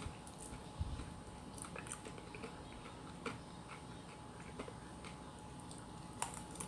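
A person eating quietly: faint chewing with a handful of light, scattered clicks of utensils against a dish, over a faint steady electrical hum.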